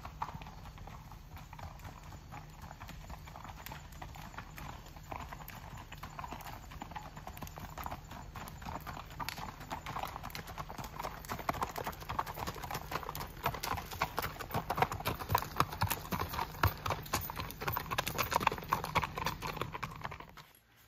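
Hoofbeats of two ridden horses, one a Missouri Fox Trotter gelding, walking on a gravel road. They grow louder as the horses draw near and cut off abruptly near the end.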